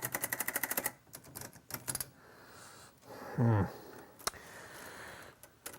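Typewriter keys struck in a fast run of about a dozen clicks a second for the first second, then a few scattered keystrokes. About halfway through comes a short, loud sound with sliding pitch.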